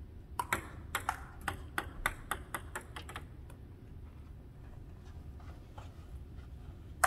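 Table tennis rally: a ping-pong ball clicking back and forth off the paddles and table, about a dozen sharp clicks over three seconds, then it stops. One more click near the end.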